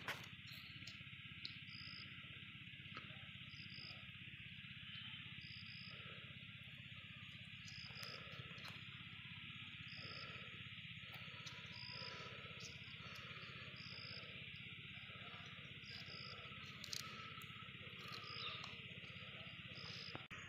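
Faint, steady insect chorus, with a short high chirp repeating every second or two.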